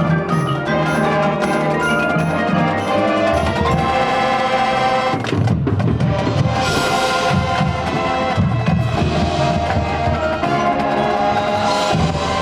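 High school marching band playing its field show: sustained wind chords with the drums coming in strongly about three seconds in.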